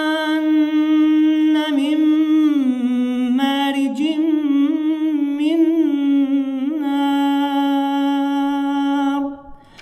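A man's voice reciting the Quran in Arabic in melodic tajweed style, drawing the words out into long held notes with a wavering, ornamented run in the middle. The voice breaks off for a breath shortly before the end.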